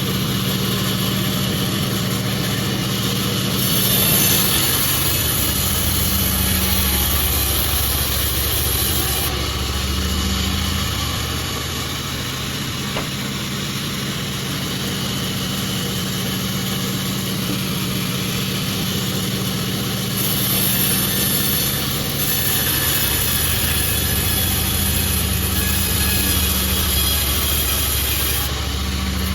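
Sawmill machinery running steadily with a low engine drone. A high hiss joins it twice: from about four to nine seconds in, and again from about twenty to twenty-eight seconds in.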